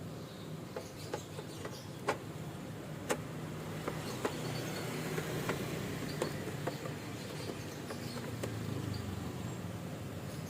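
Irregular light clicks and taps from handling and working on a wall clock movement, over a steady low hum.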